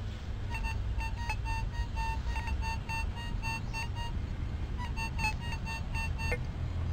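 Minelab E-Trac metal detector sounding a target through its speaker: a quick run of short high beeps as the coil sweeps over the hole. The beeps pause briefly about four seconds in, then start again. It is a solid, repeatable signal, which the detectorist takes for probably a wheat penny while hoping for a Barber dime.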